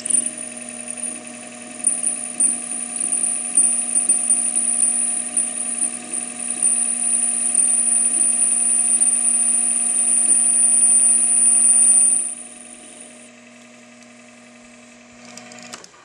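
Metal lathe running while its cutting tool turns down a small metal collar, with a steady high-pitched squeal from the cut over the machine's hum. The cut ends about twelve seconds in, and the lathe runs on briefly before shutting off near the end.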